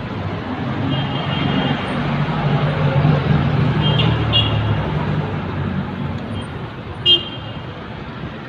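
Street traffic with a jeepney's engine passing close, its hum swelling and fading. A few brief high-pitched toots, the sharpest and loudest about seven seconds in.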